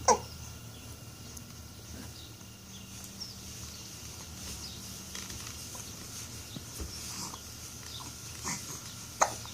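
A baby's small grunts and squeaks, with two sudden short louder sounds: one at the start and one just before the end.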